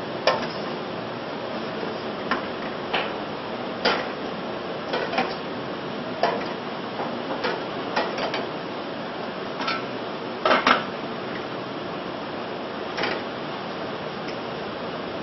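Ladle clinking and knocking against a stainless-steel saucepan as soup is stirred: irregular clicks a second or so apart, with a louder double knock about ten and a half seconds in, over a steady hiss.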